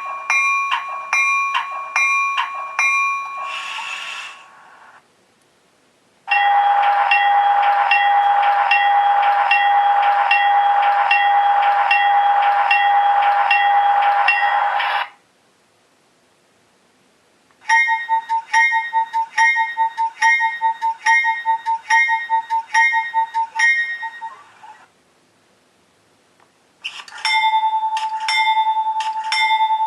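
A recorded EMD locomotive steel bell rings with steady, evenly spaced strokes and dies away about four seconds in. It is followed by three recordings of GE locomotive steel bells, each ringing steadily for several seconds, with short silent pauses between them. All are played from a model locomotive's sound decoder through its small speaker.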